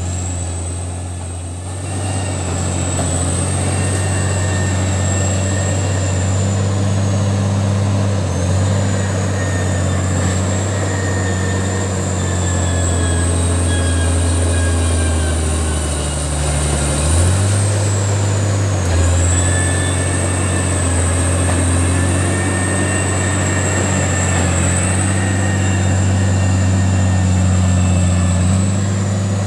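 Caterpillar D6D crawler bulldozer's diesel engine running hard as it pushes earth: a loud, steady low drone that shifts in pitch a few times, most clearly a little past halfway, with a thin high whine above it rising and falling along with the engine.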